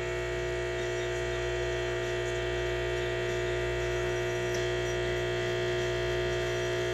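LoRe Mix pod espresso machine's pump humming steadily while it brews an espresso shot, pushing water through the coffee pod.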